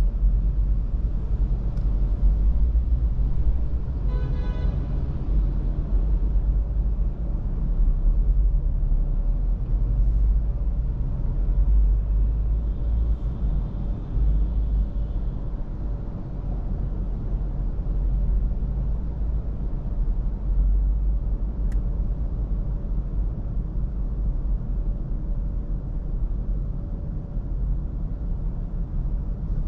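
Steady low rumble of road traffic and an idling car, heard from inside the car's cabin while it waits at a light, as double-decker buses and cars pass in front. About four seconds in there is a brief pitched whine.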